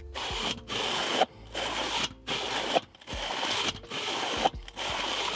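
Weber kettle grill's ash-cleaning blades swept back and forth across the bottom of the bowl by the vent lever, scraping through the ash. There are about six strokes with short pauses between them, pushing the old ash down through the vents.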